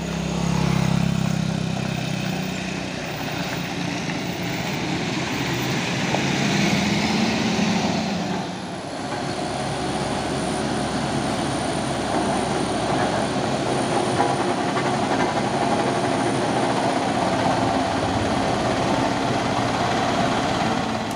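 Coach bus diesel engine running as it climbs a gravel road; about eight seconds in the sound changes to the steady running of a road roller and a heavy truck's diesel engine passing, with a thin high whine over it.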